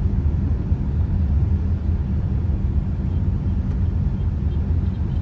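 A car driving along, with a steady low engine and road rumble.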